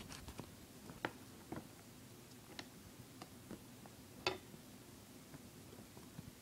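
Faint, scattered clicks and taps of an iPod touch and its plastic packaging being handled. The sharpest come about a second in and again just past four seconds.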